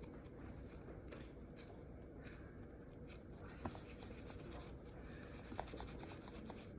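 Faint rubbing and rustling of a soft foam putty being handled and rolled into a ball in the hands, with a couple of small clicks.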